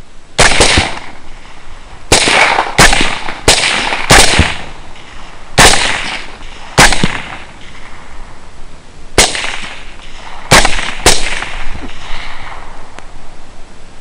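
A string of rifle shots at hogs in a field, about ten sharp reports fired at irregular intervals between half a second and two and a half seconds apart. Each shot is followed by an echo, and the last comes about eleven seconds in.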